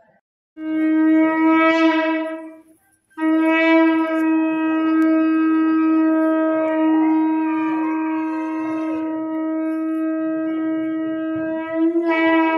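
Conch shell (shankha) blown in long held notes: a blast of about two seconds, a short break, then one long blast of about nine seconds that swells and rises a little in pitch near the end. The conch is the signal that the altar curtains are opening for darshan.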